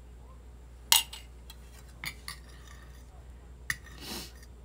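A fork clinking and tapping against a plate a few times while eating, the sharpest click about a second in.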